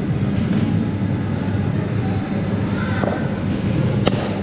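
A steady, loud low hum fills the indoor cricket nets hall. A single sharp knock comes near the end, the kind a cricket bat meeting a ball or a ball striking the pitch makes.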